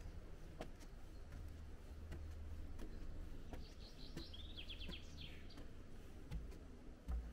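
A songbird singing one short song of about two seconds, ending in a fast trill of repeated notes, a little after the middle, over a low rumble and scattered faint clicks.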